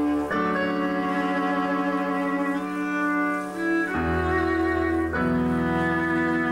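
Instrumental music of bowed strings holding long sustained notes together, with the chord changing about a third of a second in, again about four seconds in, and once more a second later. Low notes join from about four seconds.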